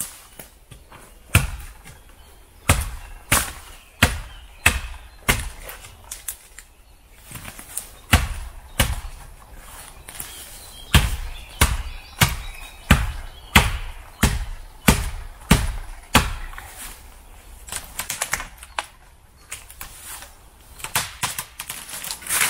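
Fiskars XA3 machete chopping into a spruce trunk: a run of sharp blows, roughly one every two-thirds of a second, broken by a few short pauses. Near the end, quicker blows as the trunk is cut through and the tree gives way and topples.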